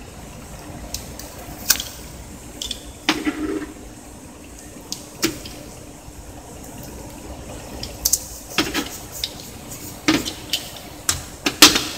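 A plastic Canon PG-810 ink cartridge being handled while its label sticker is peeled off with a box cutter: scattered sharp clicks and short scrapes, closer together in the second half, over a faint steady hum.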